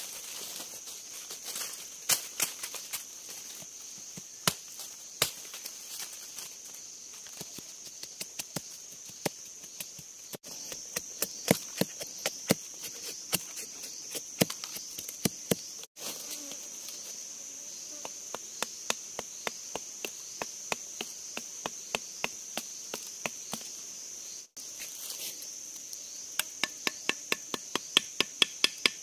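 Machete blade chopping into wood and bamboo: a series of sharp strikes, some single, some in quick runs, over a steady high insect drone.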